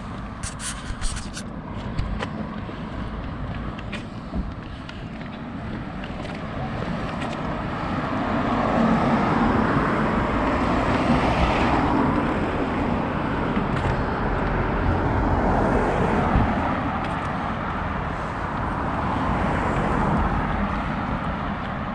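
Road traffic on a town street: cars and a van passing close by, the tyre and engine noise swelling and fading, loudest about halfway through and again near the end. A few sharp ticks in the first couple of seconds.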